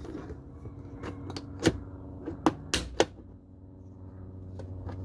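A hand-squeezed plastic rivet tool clicking as it sets a plastic push rivet. A run of sharp clicks starts about a second in, the three loudest coming over the next two seconds. A steady low hum sounds underneath.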